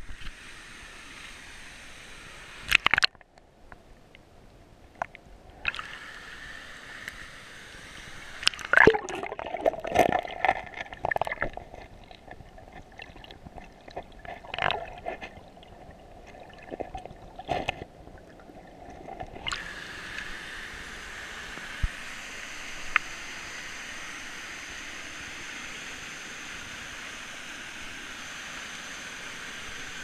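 Stream water heard through a camera dipping in and out of a shallow pool: the rush of a waterfall goes muffled underwater about 3 seconds in and again from about 9 to 19 seconds, with gurgling and sloshing bursts. After that the waterfall is heard clearly as a steady rush.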